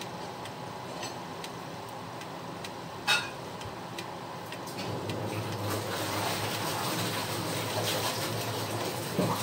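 Pot of beef stew boiling on the stove, a steady bubbling hiss that grows louder and busier in the second half. A single sharp knock comes about three seconds in, and another knock near the end.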